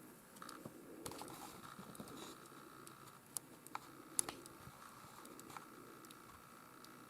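Faint scattered small clicks and light rustling of close handling, the sharpest click about four seconds in, over a faint steady high hum.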